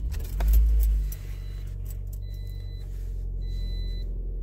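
The key turns and a 2012 Toyota Corolla's engine cranks and starts, flaring loudly for under a second before settling to a steady idle. From about two seconds in, an electronic chime beeps on and off about once a second.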